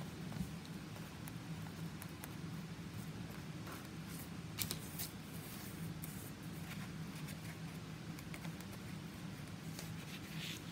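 Faint handling sounds of painting a paper towel roll: soft scratching and a few light clicks of the brush and the cardboard tube against the table, the clearest a little under halfway through, over a steady low hum.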